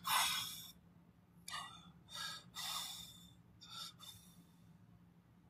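A man breathing hard through his nose and mouth: about five short noisy sniffs and gasping breaths, the first the loudest, over a faint steady low hum.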